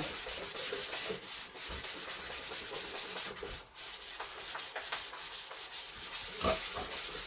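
Hand sanding on a Pontiac Trans Am's body: quick, even back-and-forth rubbing strokes, many a second, a dry, hissy scratching.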